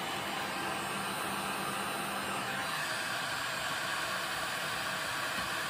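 Handheld electric heat gun running, its fan blowing a steady rush of hot air with a faint motor hum.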